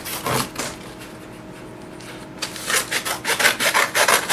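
Scissors cutting through corrugated cardboard. A short rustle of the cardboard being handled comes first, then from about two and a half seconds in a rapid run of cutting strokes that grows louder.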